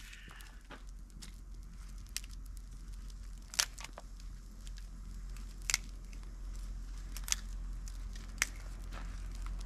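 Small, newly lit campfire of split kindling crackling, with a few sharp pops one to two seconds apart over a steady low rumble.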